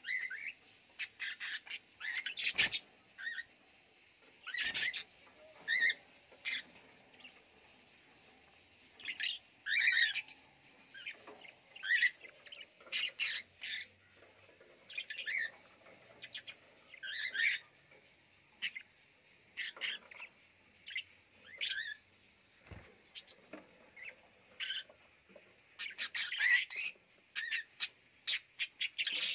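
Caged budgerigars chirping and squawking in short calls, scattered throughout, with a busier flurry near the end.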